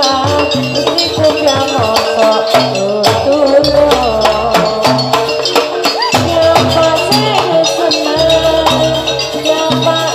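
Live jaranan barong ensemble music: a wavering, bending melody line over dense drum and rattling percussion strikes, with low sustained tones underneath.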